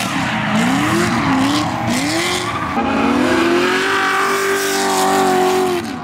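A drift car's engine revving up and down in quick pulses about twice a second, then holding one steady note for about three seconds before dropping off near the end, over the hiss of spinning, skidding tyres.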